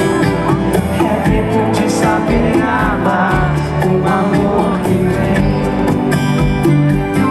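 Live band music with an upright bass, an electronic drum kit and singing.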